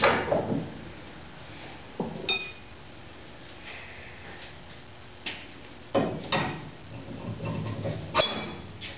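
Steel trailer parts, U-bolts and a U-bolt plate, knocking and clinking against the axle and leaf spring as they are set in place by hand. A handful of separate knocks, two of them ringing metallic clinks.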